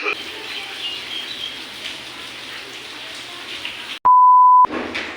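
Steady rain falling. Just after four seconds in, a loud, pure, steady beep cuts in for about half a second, and the rain continues more faintly after it.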